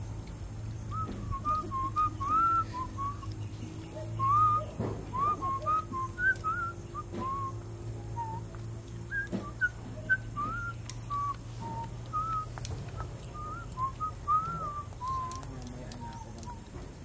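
A person whistling a tune in short, gliding notes, phrase after phrase, over a steady low hum.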